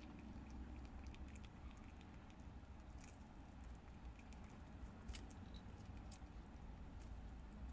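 Prairie dog gnawing kernels off a cob of white corn: faint, irregular crisp clicks and crunches over a steady low hum.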